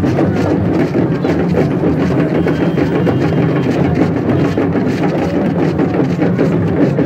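Loud, dense din of a packed crowd with drumming mixed in, a steady clatter with no pauses.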